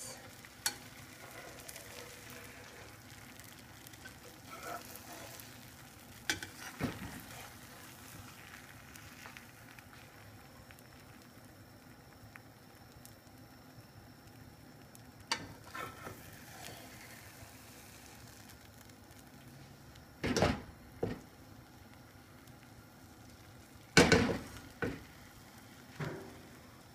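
Omelet egg mixture frying gently in olive oil in a pan, with a metal slotted spatula now and then scraping and knocking against the pan; the loudest knocks come twice in the last third.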